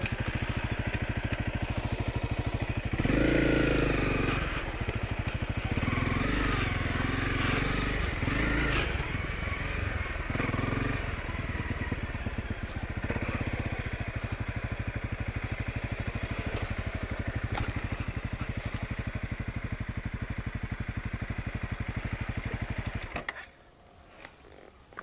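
Honda CRF250L's single-cylinder four-stroke engine running as the dual-sport bike is ridden along a dirt trail, with a louder burst of throttle about three seconds in. The engine cuts out abruptly near the end.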